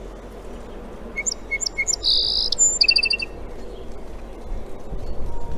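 A songbird singing one song phrase about a second in: a few short high notes, a buzzy trill, then a quick run of repeated notes, over steady background hiss.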